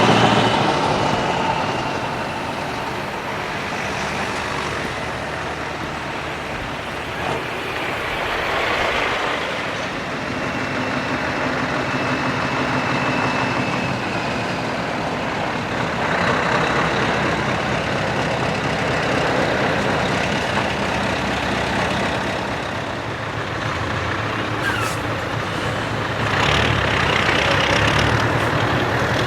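Scania V8 truck engines with open side pipes running continuously as the trucks drive past one after another. The sound swells and fades as each comes close, and is loudest again in the last few seconds.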